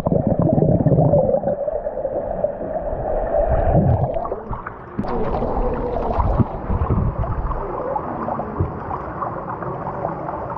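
Strong wind buffeting an action camera's microphone during a bike ride: a muffled, uneven rumble, with scattered knocks after about five seconds.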